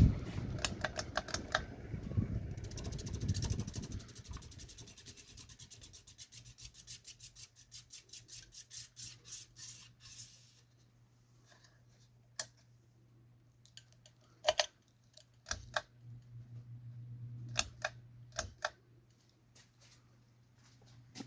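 Antique Minerva ceiling fan running: a steady motor hum under a rhythmic ticking that slows and stops about ten seconds in, followed by a few separate clicks.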